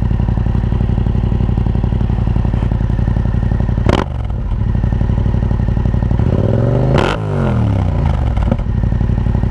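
2016 Yamaha MT-07's parallel-twin engine idling through an Akrapovic 2-into-1 carbon exhaust, heard up close. It gives one quick rev about six and a half seconds in that rises and falls back to idle. There is a sharp click about four seconds in.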